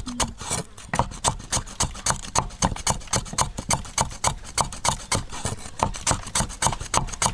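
Steel cleaver chopping lemongrass on a thick round wooden chopping block: rapid, even knocks of the blade on the wood, about five a second.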